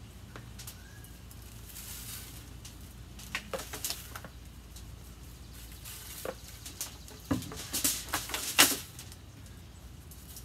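Barbecue rub shaken from a shaker bottle onto a pork shoulder: several short bursts of rattling and shaking, the loudest near the end, over a low steady hum.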